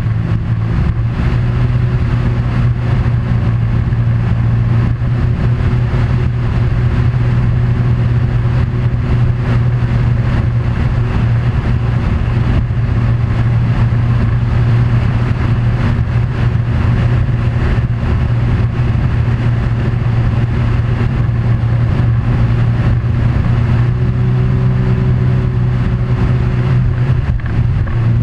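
An engine running steadily at a constant speed under a continuous rushing noise, heard from aboard the moving vehicle or boat it drives.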